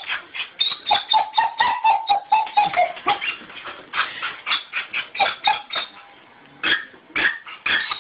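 Excited dog whining in quick short bursts, about four a second, with a long high whine from about one to three seconds in that drops in pitch at its end. It briefly goes quieter around six seconds in.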